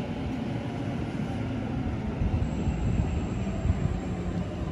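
Double-deck electric suburban train pulling slowly out of the platform, a steady low rumble. A faint thin high whine joins it about halfway through.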